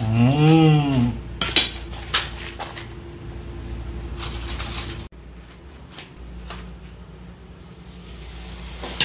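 A drawn-out 'woooow'-like voice rising and then falling in pitch for about a second, followed by a series of light clinks and knocks of metal utensils and dishes. The sound drops to a quieter steady hum about five seconds in, with a few faint clicks.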